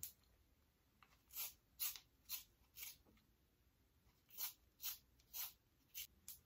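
Lip liner pencil being sharpened in a small handheld sharpener: faint short scraping strokes about half a second apart, four of them, a pause, then five more.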